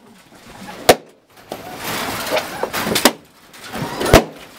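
Loud, sharp bangs, three of them: about a second in, three seconds in and four seconds in, the first and last the loudest, with a noisy clatter between the first two.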